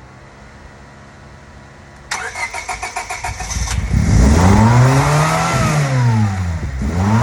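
1999 Honda Civic engine cranked over by the starter in a quick even rhythm for about a second and a half, catching and then revving up and falling back by itself, beginning to rise again near the end. This is the self-revving surge and high idle that the owner takes for a vacuum leak.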